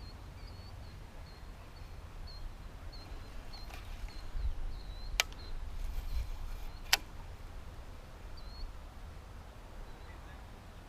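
Outdoor ambience: a faint, regular high chirping over a low wind rumble, broken midway by two sharp clicks about a second and a half apart.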